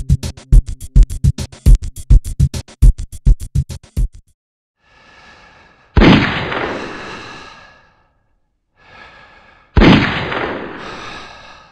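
A fast electronic drum beat of hard, scratch-like hits that stops about four seconds in. Then come two single gunshot sound effects, as from a sniper rifle, about four seconds apart. Each is preceded by a faint hiss and rings out for about two seconds.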